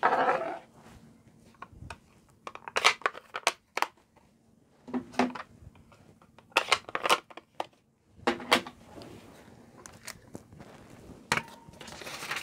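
Ink pads and craft tools being handled and set down on a desk: irregular clusters of sharp plastic clicks and knocks.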